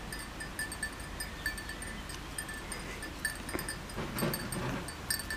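A small metal bell tinkling in short, irregular clinks, all at the same bright pitch, with some soft rustling about four seconds in.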